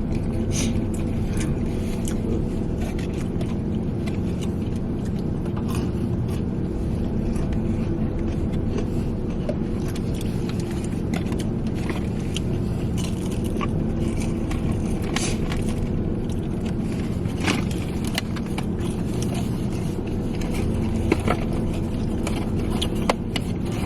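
A small truck's engine idling steadily, heard from inside the cab, with scattered short clicks and rustles over it.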